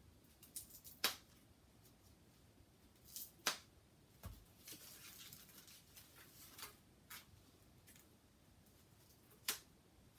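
Handling sounds of scooter parts and packaging: a few sharp clicks and taps with light rustling, the clearest about a second in, at three and a half seconds and near the end, and a dull low thump about four seconds in.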